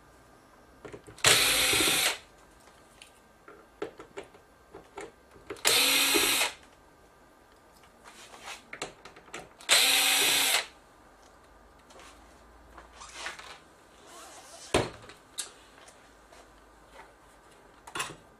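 A power screwdriver running in three short bursts, each under a second and a few seconds apart, backing screws out of an LCD TV's plastic rear cover. Light clicks and taps of handling come between the bursts.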